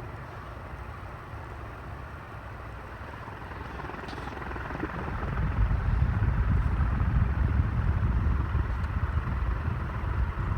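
Montgomery Ward 36-inch industrial ceiling fan running at full speed, a steady whoosh of moving air. A low rumble grows louder about halfway through.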